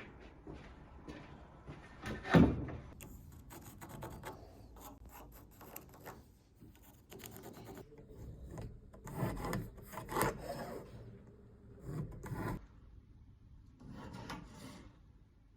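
Wood being worked by hand: irregular rubbing and scraping strokes, with one sharp knock about two seconds in.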